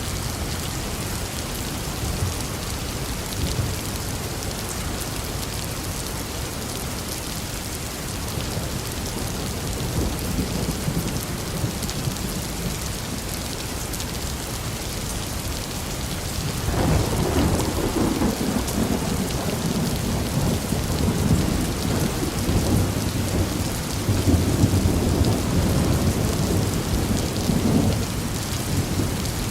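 Steady rain falling, then a long rolling rumble of thunder starting a little past halfway, swelling twice and easing near the end.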